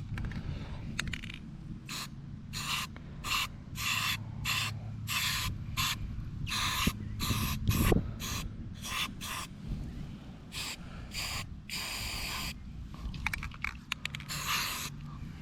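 Repeated short bursts of hissing spray, about two a second, with a couple of longer bursts near the end. A liquid treatment is being sprayed onto a corroded wheel to soak in.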